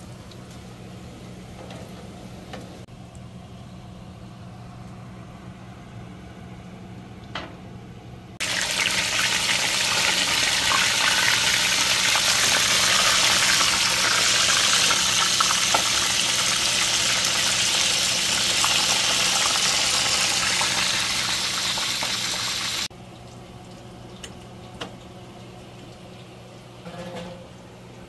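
Crinkle-cut fries dropped into hot oil in a skillet, sizzling loudly and evenly for about fourteen seconds, starting and stopping abruptly. Before and after, only a low steady hum with faint frying.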